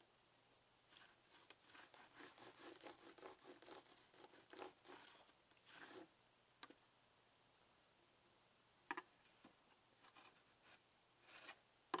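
Carpenter's pencil drawn along a combination square's steel blade on rough, weathered wood: a run of quick, faint scratching strokes, then a few light clicks near the end.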